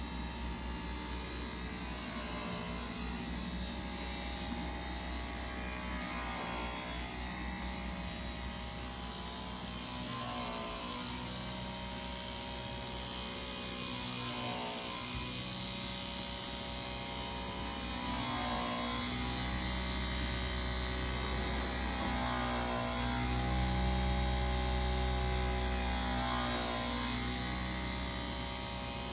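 Small 12-volt diaphragm pump of a homemade beer carbonation rig running with a steady hum, circulating beer through hoses and a keg.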